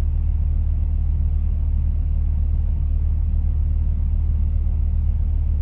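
Steady low drone of a semi-truck's diesel engine running, heard inside the cab.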